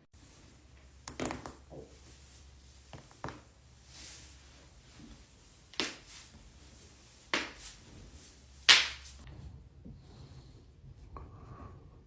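Spine and joints cracking and popping during a chiropractic adjustment: about half a dozen separate sharp cracks spread out, the loudest about nine seconds in.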